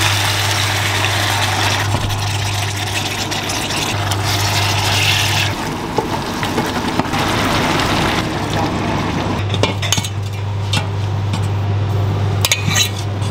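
Liquid poured into a hot steel pot of chicken, with a steady hiss of sizzling and simmering for the first few seconds. Then a wooden utensil and metal clink against the pot and a metal serving dish as the chicken pieces are lifted out. A steady low hum runs underneath.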